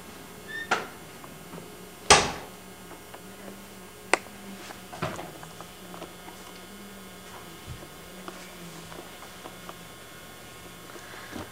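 A wooden panelled door closing with a sharp bang about two seconds in, with a few lighter knocks before and after it, over a steady electrical hum.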